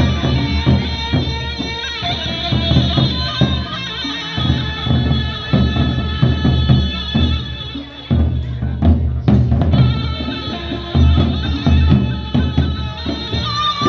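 Gendang beleq ensemble playing on the march: large two-headed barrel drums beaten in a fast, busy rhythm under a sustained melody line. The playing thins briefly about eight seconds in, then picks up again.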